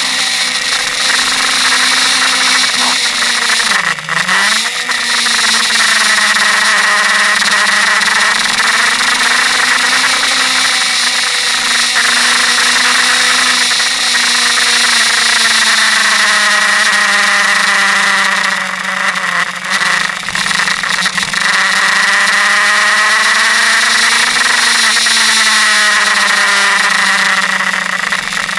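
Suzuki GSX-R K5 sport bike's inline-four engine under way, its pitch rising and falling with throttle and gear changes, with a sharp dip about four seconds in. Steady heavy wind rush on the bike-mounted microphone runs underneath.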